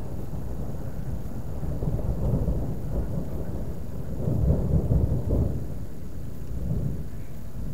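Thunder rumbling deep and low. It swells about halfway through, then dies away.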